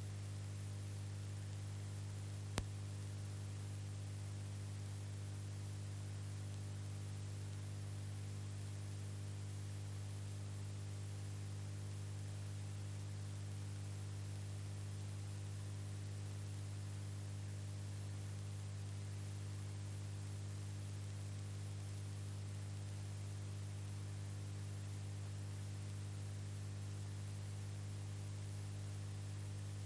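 Steady electrical hum with hiss on an otherwise silent audio track, with one short click about two and a half seconds in.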